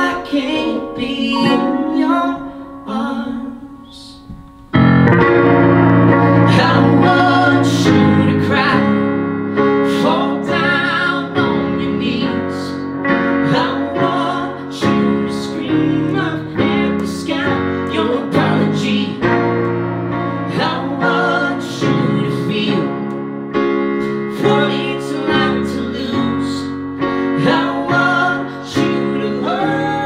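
Live guitar and keyboard duo playing. The first few seconds are a sparse, quieter passage; about five seconds in the full arrangement comes in loud with a deep bass line and carries on.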